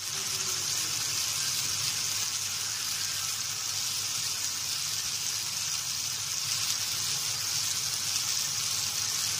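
Meat, sausages and skewers sizzling steadily on a hot cast-iron griddle plate, with a low steady hum underneath.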